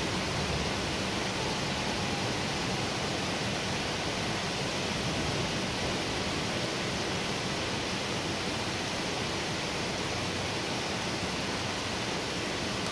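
Heavy rain pouring steadily onto trees and the ground, an even, unbroken hiss with no thunder or other distinct event.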